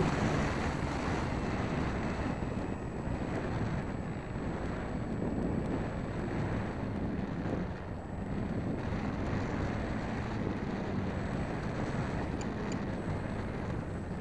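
Wind rushing over the microphone of a camera mounted on a Dynam Waco electric RC biplane as it flies its low landing approach, with a faint steady hum underneath.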